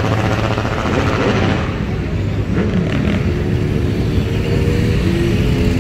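Motorcycle engines running at low revs as a procession of motorcycles and scooters rides slowly past, making a steady low engine sound.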